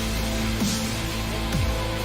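Electronic background music with a heavy beat and a deep bass that drops in pitch about once a second.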